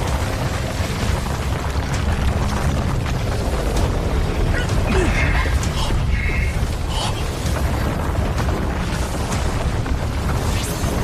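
Heavy, continuous low rumbling with repeated booms and crashes: the sound effect of a mountain collapsing, laid under dramatic background music.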